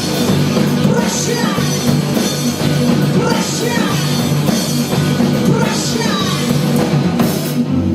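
Rock band playing live, loud and full.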